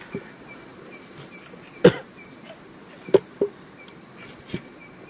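Crickets and other insects trilling steadily, with a small chirp repeating about three times a second. Over them come four sharp knocks, likely footsteps in plastic sandals on a dirt path, the first about two seconds in.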